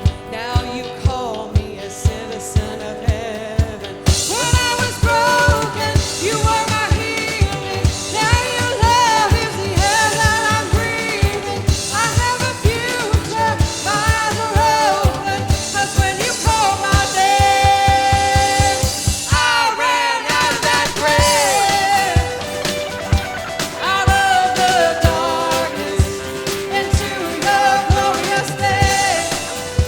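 Live worship band music with a steady drum beat under a melodic lead. The full band comes in about four seconds in, and the bass and drums drop out briefly about two-thirds of the way through.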